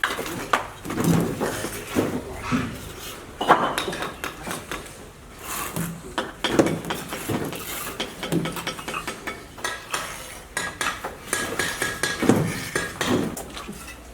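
Irregular clinking and knocking of hard, metal-sounding objects striking one another, in quick uneven strokes throughout.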